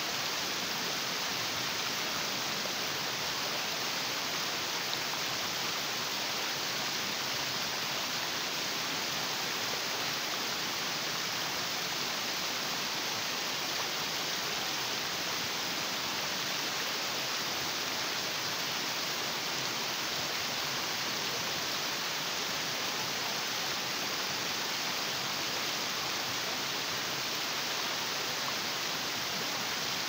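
Stream water cascading over sloping rock and between boulders: a steady rushing hiss with no breaks.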